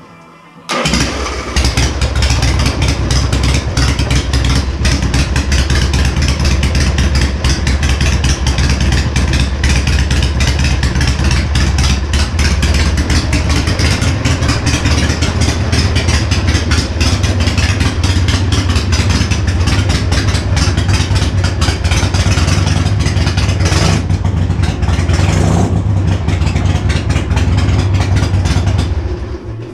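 1977 Harley-Davidson Ironhead's air-cooled V-twin running through 1¼-inch straight pipes with no baffles, only small lollipop washers for back pressure. The exhaust is loud and steady and cuts in suddenly about a second in.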